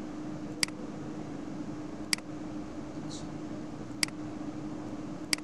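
Four sharp computer mouse clicks, a second or two apart, over a steady low hum and fan-like background noise.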